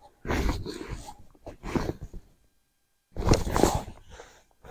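Wind buffeting the camera microphone in rough, rumbling gusts, about three of them, each cutting off abruptly into silence.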